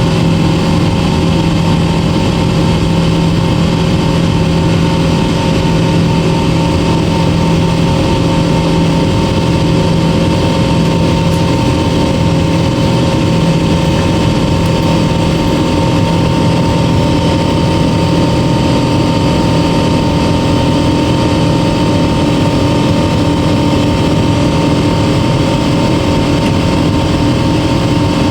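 Jet airliner cabin noise: a steady, loud roar of engines and rushing air with several constant droning tones underneath. About twelve seconds in, one low drone steps down and changes.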